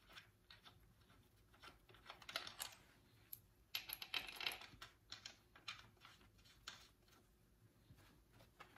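Faint, irregular metallic clicks and clinks of front-pump bolts with steel sealing washers being handled and threaded in by hand on a Mopar 904 automatic transmission, with two busier spells of clinking about two and four seconds in.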